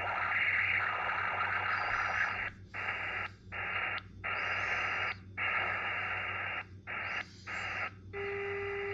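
Receiver audio from a Xiegu X6100 HF transceiver with no antenna connected: a loud hiss broken by short, irregular dropouts as the dial is tuned down through 160 metres in LSB. About eight seconds in, a steady low whistle comes in, a birdie: interference made inside the radio itself.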